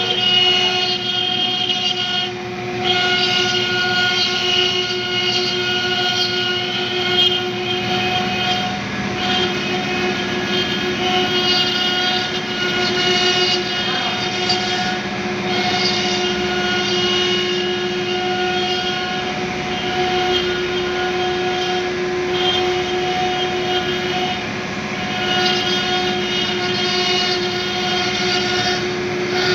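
RK3020 CNC stone router's spindle cutting a stone slab: a steady high whine with overtones, under a hissing cutting noise that dips briefly every few seconds as the tool moves.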